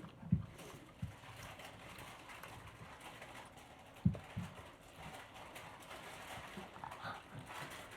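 A few soft, low thumps, one about a second after another near the start and a pair about halfway, typical of dishes, chopsticks or hands knocking on a table during a meal.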